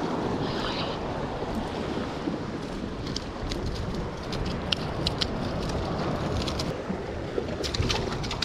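Waves washing against rocks, with wind buffeting the microphone; from about three seconds in, a scatter of sharp clicks and taps.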